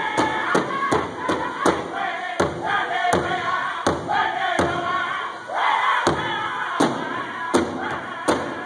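Powwow drum group singing in high, gliding voices over a large powwow drum struck together by several drummers in a steady beat of about three strokes a second.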